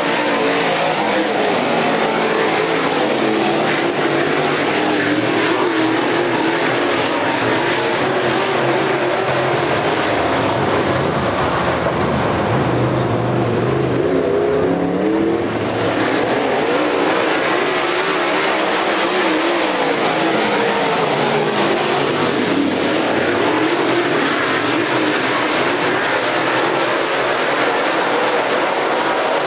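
Several dirt late model race cars' V8 engines running together around the dirt oval, a loud continuous engine sound with pitch rising and falling as the cars lift and accelerate through the corners.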